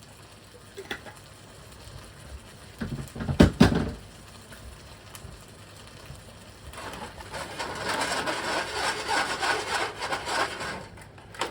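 A couple of loud knocks, then about four seconds of scraping as a utensil stirs food around in a pan.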